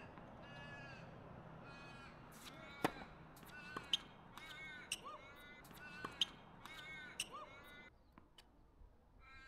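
A bird calling in a quick series of short, harsh caws, which stop near the end. Sharp tennis ball strikes and bounces come about once a second through the middle.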